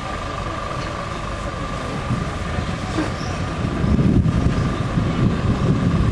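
Thunder rumbling low, building about two seconds in and loudest in the second half.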